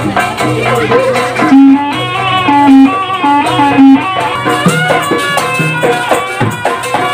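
Live Javanese jaranan music: drums and percussion under a melody that steps up and down, with a loud low pitched note struck four times between about one and a half and four seconds in.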